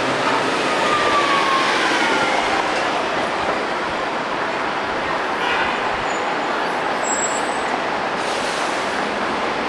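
Double-decker buses running past on a busy city street, a steady wash of engine and tyre noise, with a faint falling whine in the first couple of seconds.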